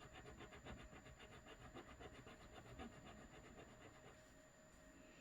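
Faint, rapid back-and-forth scratching of a ring rubbed on a gold-testing stone to leave a streak for acid testing, fading out about four seconds in.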